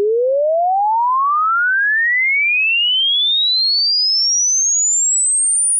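A pure sine-wave test tone at constant amplitude, sweeping smoothly and steadily upward in pitch from a low-middle tone to a very high whistle. It is part of a 20 Hz to 20 kHz frequency sweep across the audible range.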